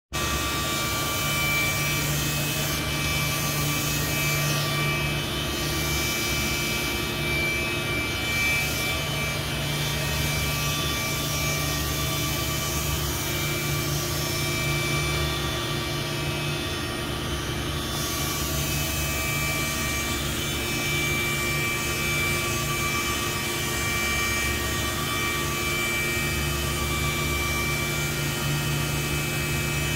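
Mazak Integrex e-1850V/12 II multitasking CNC machine running: a steady machine whine with several held tones over a hiss.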